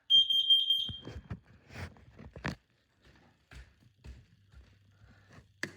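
Nest Protect smoke and carbon monoxide alarm sounding its carbon monoxide test: a loud, high-pitched piezo horn giving a short run of about four quick beeps that stop after about a second. A few faint knocks and rustles follow.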